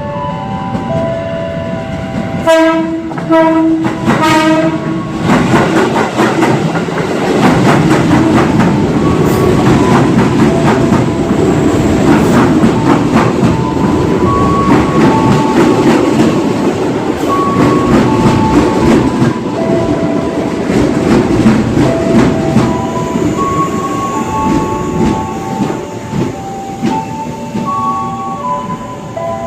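KRL Commuter Line electric train sounding its horn in two short blasts about 2.5 s in, then running past with its wheels clattering rhythmically over the rail joints.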